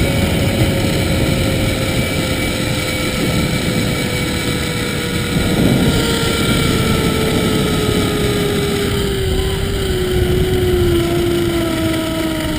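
Zip line trolley pulleys whirring along the steel cable, with wind noise on the microphone. The whine falls slowly and steadily in pitch as the rider loses speed.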